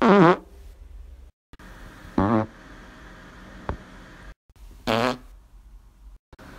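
Three separate short farts from a person: brief pitched blasts at the start, about two seconds in and about five seconds in, the first sliding down in pitch. A sharp click comes between the second and third.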